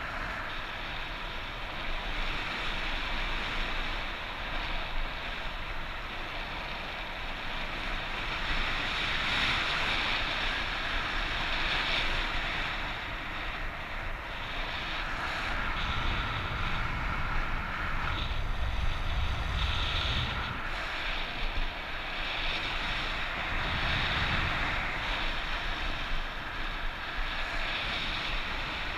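Strong wind rushing over the microphone in flight, a steady roar that swells and eases in gusts, with heavier low buffeting about halfway through and again a few seconds later.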